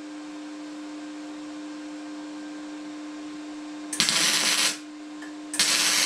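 MIG welder laying tack welds on a steel tube frame: two short bursts of arc crackle, the first about four seconds in and the second starting just before the end, over a steady hum.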